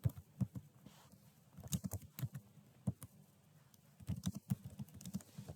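Computer keyboard typing in short bursts of clicks, as build commands are entered.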